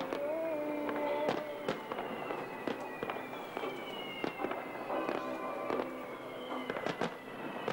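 Aerial fireworks going off: a run of sharp bangs and crackles from bursting shells. Music plays along with them, and a high tone slowly falls in pitch through the second half.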